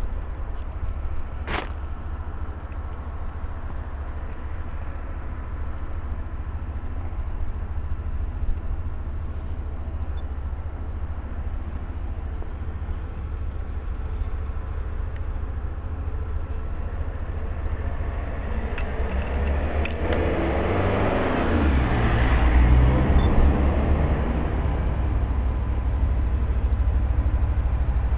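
A steady low rumble, then from about twenty seconds in a Class 66 diesel freight locomotive's engine grows louder as it approaches, loudest a couple of seconds later.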